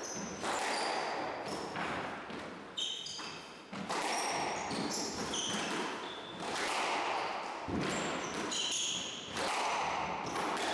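Squash rally: rackets striking the ball and the ball smacking off the court walls in quick succession, with an echo. Short high-pitched squeaks, typical of shoes on the wooden floor, come between the hits.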